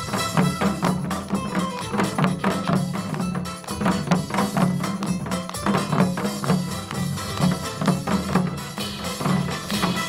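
Upbeat trot music with a steady beat, with janggu hourglass drums beaten along to it by a drumming troupe.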